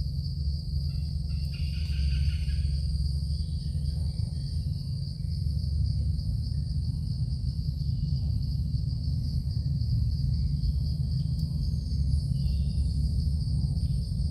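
Insects droning steadily at a high pitch over a constant low rumble, with a few faint chirps about two seconds in.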